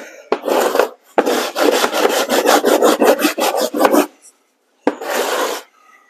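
Hand sanding the painted wooden slats of a vintage chicken crate with sandpaper: quick back-and-forth rasping strokes, a short one first, then a fast run of about three seconds, then one more stroke near the end. The sanding knocks down rough wood and raised nail heads.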